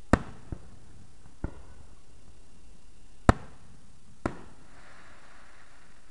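Fireworks going off: five separate sharp bangs of differing loudness, the loudest right at the start and about three seconds in, followed by a faint hiss for about a second.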